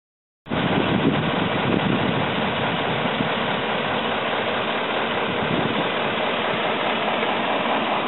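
Fire engines' diesel engines idling, a steady rumbling hum that starts suddenly about half a second in.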